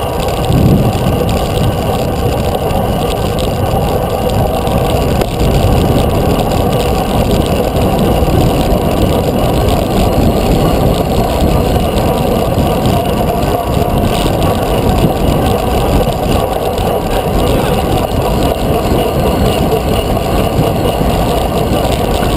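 Wind buffeting the microphone of a GoPro mounted on a track bike riding fast around a velodrome: a steady, loud rumble.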